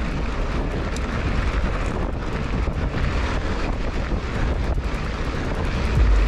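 Wind buffeting an action camera's microphone on a mountain bike moving at speed over a dirt-and-gravel road, a steady rushing rumble with faint scattered clicks from the tyres and bike rattle. It gets a little louder near the end.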